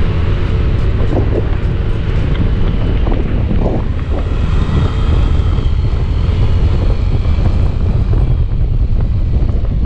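Heavy wind rushing over the microphone of a moving Yamaha Aerox 155 scooter, with the scooter's engine running faintly underneath.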